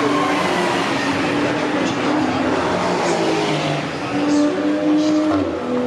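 Porsche 911 GT3 R race car's flat-six engine driving past at speed and pulling away along the circuit. The engine note shifts up and down in pitch several times.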